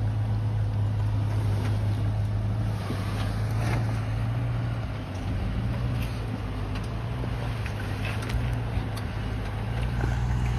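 Off-road vehicle's engine idling steadily as it crawls slowly down a rock ledge, with a few faint ticks of tyres and rock.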